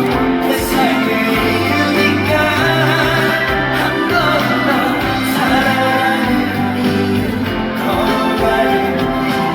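Live stage performance of a song: band accompaniment with sustained bass notes and a singer's voice over it, played loud through the sound system.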